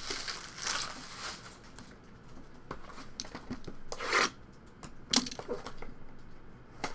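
Plastic shrink wrap on a trading-card box being slit with a small cutter and peeled away, crinkling and tearing in short scratchy strokes, the loudest about four seconds in.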